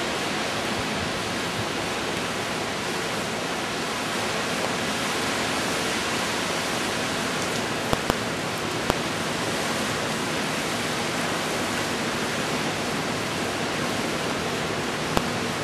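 Hurricane Wilma's wind and rain: a steady, even rushing noise. A few sharp clicks sound about eight seconds in and again near the end.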